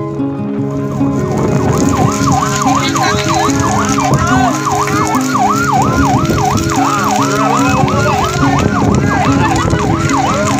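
Emergency vehicle siren in a fast yelp, sweeping up and down about three times a second, starting about a second in, over background music.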